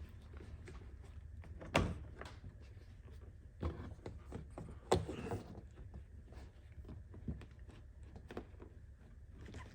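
Irregular clicks and knocks of a socket wrench and a metal light-pod bracket being handled while it is bolted to the side-by-side's roll cage, with two sharper knocks about two and five seconds in.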